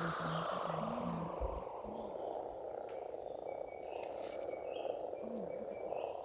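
A chorus of many frogs calling together, a dense continuous croaking without a break.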